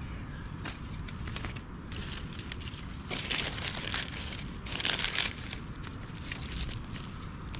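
Dry split kindling being handled and laid down among twigs on a snowy log, crunching and rustling, loudest in two bursts about three and five seconds in. A steady low rumble runs underneath.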